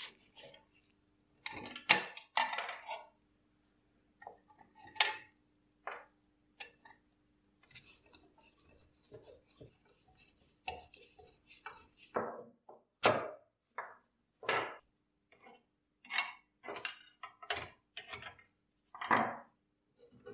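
Hand tools working the screws and nuts of a rusty sheet-metal guillotine tray: irregular metallic clinks, knocks and light scraping of a screwdriver and wrench against steel. The clinks are sparse in the middle and come closer together in the second half.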